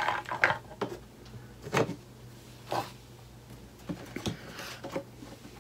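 Hard resin model-kit parts being handled and set down on a table: a run of light knocks and clatters, a few at the start, then single ones and a quick cluster near the end.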